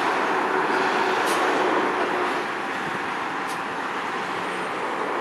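An ore train hauled by a GE Dash C44EMi diesel-electric locomotive rolling slowly into a yard: a steady noisy rumble with two brief high squeals, about one and three and a half seconds in.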